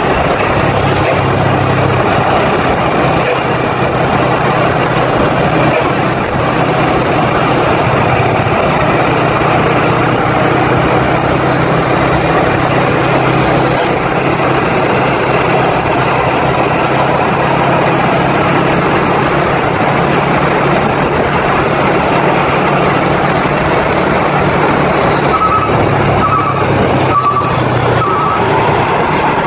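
Road traffic passing close by: a steady, loud wash of engine and tyre noise from heavy vehicles, with a few short high beeps near the end.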